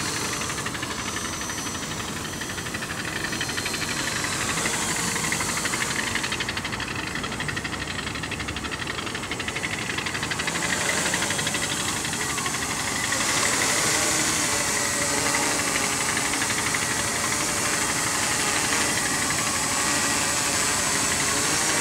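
T380 multirotor drone in flight, its propellers and electric motors giving a steady whirring hum that grows louder a little past the middle.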